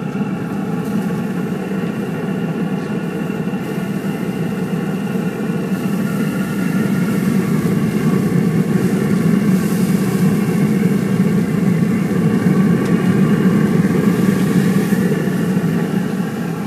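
Rec Tec Mini pellet grill running at full heat with its lid open: a steady low rush from its fan and fire pot, with a few steady whining tones above it, swelling a little in the middle.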